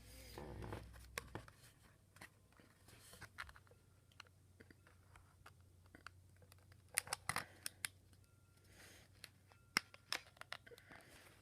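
Scissors cutting along the plastic retail packaging of a microSD card: faint scattered snips and crinkles, with a quick cluster of snips about seven seconds in and more near ten seconds.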